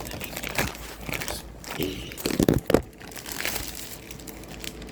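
Packaging being torn open and crinkled by hand: a run of irregular rustles and crackles, loudest in a cluster about halfway through.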